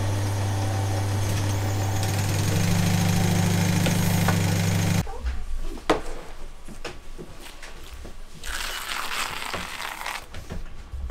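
Steady electric hum of a leather-working machine's motor as a leather strip is fed through it, getting a little stronger about two and a half seconds in. It cuts off suddenly about five seconds in, giving way to quieter handling of leather belt strips on a worktable, with one sharp knock about a second later and rustling toward the end.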